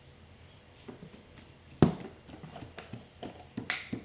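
Wooden spoon knocking against a ceramic bowl as ginger and sugar are mashed together, in an uneven run of knocks a few times a second. One sharp knock, the loudest sound, comes a little under two seconds in.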